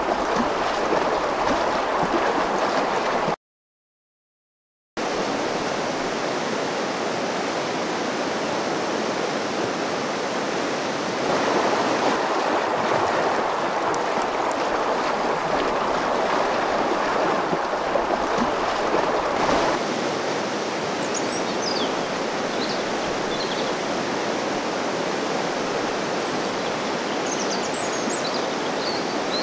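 Fast-flowing wild river rushing over rapids and rocks, a steady roar of white water that drops out to silence for about a second and a half a few seconds in. In the second half a few short, high bird chirps sound over the water.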